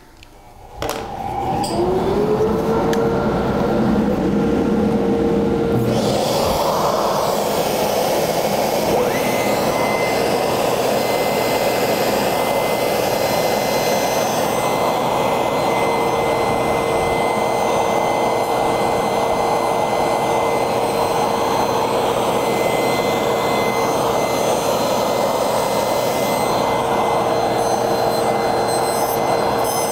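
Table saw with a rip blade, and the shop vac hooked to its jig, running: a motor spins up with a rising whine about a second in, then a much louder steady rushing noise joins about six seconds in. The blade is cutting the cope around the outside of a wooden bowl blank as the blank is turned in the jig.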